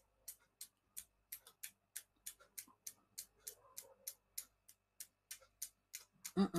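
Faint, even ticking, about three sharp ticks a second. A brief low murmur from a voice comes near the end.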